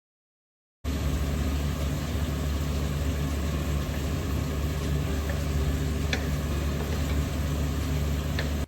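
An electric motor running steadily with a low hum and a hiss, cutting in suddenly about a second in, with a few faint ticks over it.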